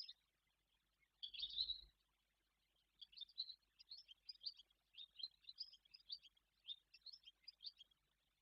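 Barn swallow twittering faintly: a short burst of chirps about a second in, then a run of quick high chirps through the second half.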